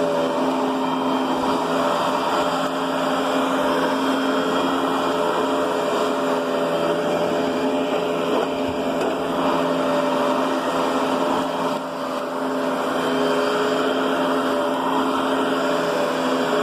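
Riccar Brilliance upright vacuum cleaner running steadily while pushed over carpet, a constant motor hum with a few steady tones over the rush of strong suction; the level dips briefly about twelve seconds in.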